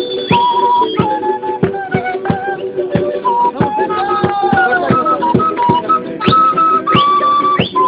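Instrumental passage of folk music between sung verses: a flute plays the melody in held notes with short slides between them, over fast, steady strumming of stringed instruments.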